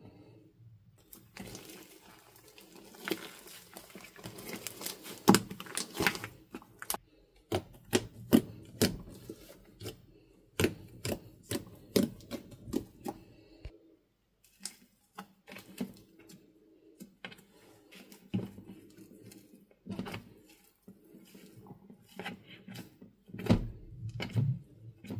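Fluffy slime being stirred, poked and stretched by hand, giving a run of irregular sticky clicks and pops, busiest in the first half with a short lull past the middle.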